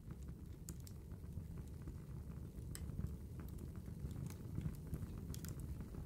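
Wood fire crackling in a fireplace: irregular sharp pops and snaps over a low, steady rumble.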